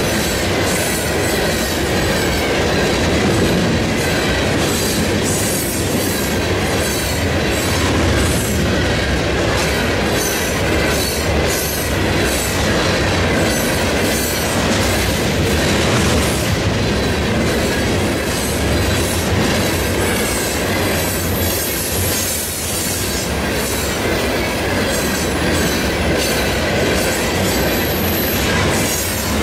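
Canadian National freight train's cars rolling steadily past, wheels clacking in a continuous stream over the rail joints, with a faint high wheel squeal now and then.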